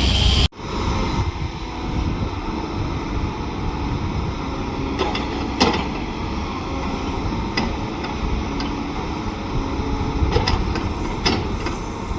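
Diesel engine of heavy earthmoving machinery running steadily, with a few sharp metallic knocks scattered through it.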